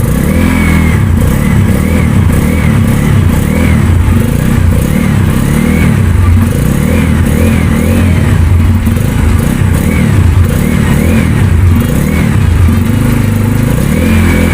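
2023 Bajaj Pulsar N250's single-cylinder engine running with a throaty, deep exhaust note, the revs rising and falling in short repeated blips.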